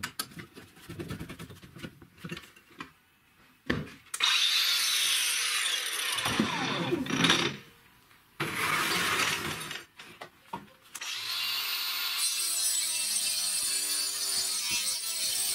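Knocks and clicks of a cordless angle grinder being handled in a metal saw base. From about four seconds in, a Makita DGA504 cordless angle grinder fitted with a saw blade runs in bursts with its pitch gliding as it speeds up and slows, then runs steadily for the last few seconds while cutting through a chipboard panel.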